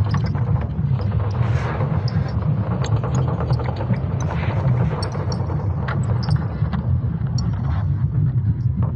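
Sonified spacecraft recording of Earth's magnetic field: a continuous deep rumble overlaid with scattered crackles and brief chirps.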